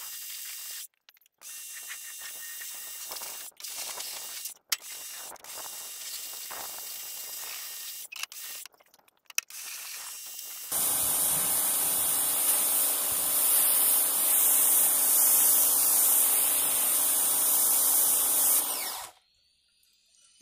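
Pressure washer spraying down a lawn tractor. The jet hisses in stop-and-start spells at first, then from about ten seconds in gives a louder, steady spray with the washer's motor running under it, and cuts off about a second before the end.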